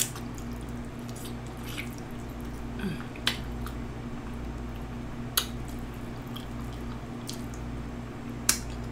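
Close-miked chewing of tender barbecued beef rib meat: soft wet squishing broken by about six sharp, wet mouth clicks, the loudest near the end.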